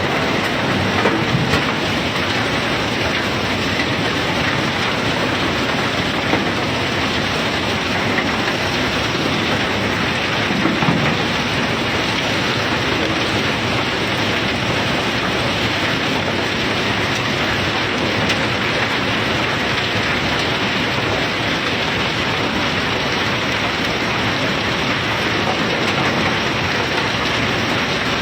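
Self-unloading ship discharging its bulk cargo: a loud, steady, even rushing hiss, like heavy rain.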